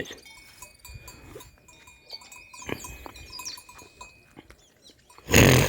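Songbirds chirping faintly, with scattered faint clinks that ring on briefly. Near the end comes a brief loud rushing noise.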